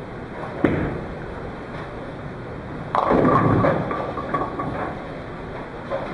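A bowling ball lands on the lane with a sharp knock and rolls away. About two seconds later it crashes into the pins, a clatter that lasts about a second and then dies down.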